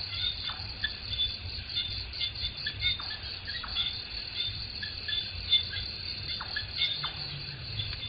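Forest ambience of birds calling and insects chirping: a dense, continuous high chirping runs under scattered short whistled notes that fall in pitch, about half a dozen of them. A low rumble sits underneath.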